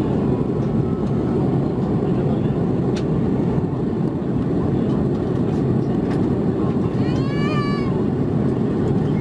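Steady cabin noise of an Airbus A330-300 in flight, heard from a window seat over the wing: a deep, even rumble of engines and airflow. About seven seconds in, a brief high-pitched cry rises and falls over about a second.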